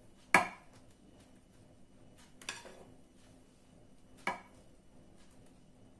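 A kitchen utensil knocking three times against a dish, about two seconds apart, the first the loudest, as mascarpone cream is shaken off onto the biscuits.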